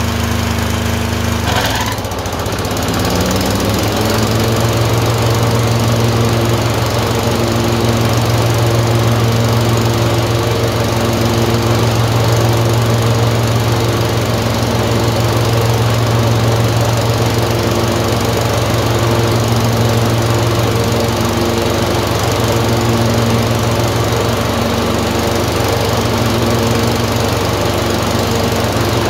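Tecumseh 22 HP twin-cylinder engine running unevenly: its speed sags about two seconds in, climbs back, then holds with a regular pulsing beat in its note, and sags again near the end. This is surging with misfires that alternate between the two cylinders.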